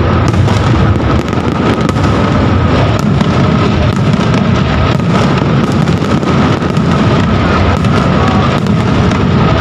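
Aerial fireworks display: shell bursts going off overhead in quick succession, many sharp bangs and crackles a second with no pause, loud throughout.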